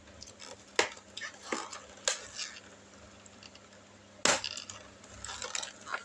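Hard plastic clicking and knocking as action-figure accessories in their plastic packaging are handled: lighter clicks and rustle with three sharper knocks, about one, two and four seconds in.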